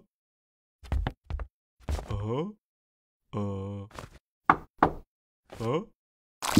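A few quick knocks on a wooden door about a second in, followed by a man's short strained groans and whimpers.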